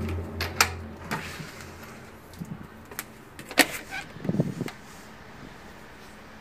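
A low, steady droning hum, the unexplained outdoor 'strange sound', fades out over the first couple of seconds. It is followed by a few sharp clicks and a brief rumble.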